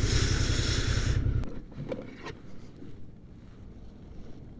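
Motorcycle engine running with wind noise on the microphone, both cutting off suddenly about a second and a half in as the bike is shut off; faint outdoor background follows.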